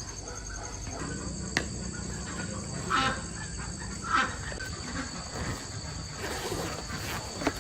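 Steady high-pitched insect chirring, with a sharp click about a second and a half in and two short louder sounds about three and four seconds in.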